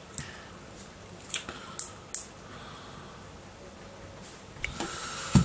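Small sharp plastic clicks and snaps as a plastic PIR motion sensor's housing and circuit parts are handled and pulled apart: four clicks in the first two and a half seconds, then a short hiss with a thump near the end.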